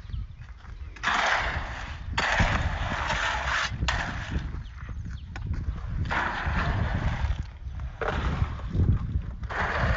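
Concrete being mixed by hand: a long-handled hoe scraping and dragging wet concrete and gravel through a plastic mortar tub. There are several rasping strokes, each lasting a second or so.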